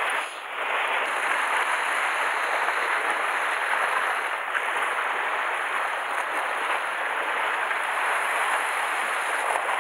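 Sea waves washing and splashing over shoreline rocks, a steady hiss of surf.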